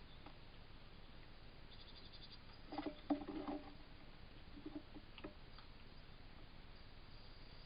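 Faint steady hiss with a brief cluster of soft clicks, knocks and rustles about three seconds in and a few more a couple of seconds later, typical of an animal moving close to a wildlife camera's microphone.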